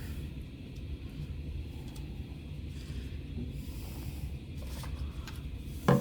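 Steady low background rumble with a few faint clicks, and a short dull thump right at the end, the loudest moment.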